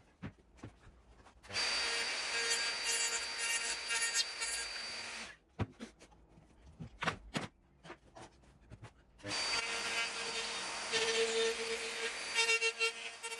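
Handheld electric router with a bearing-guided bit cutting a rebate in green oak along a plywood template, running in two bursts of several seconds with a steady whine. Between the bursts come a few sharp knocks and clicks.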